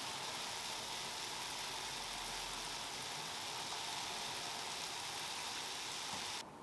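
Mizutaki broth (chicken and napa cabbage) boiling hard in a pot on the stove: a steady, even bubbling hiss that cuts off suddenly near the end.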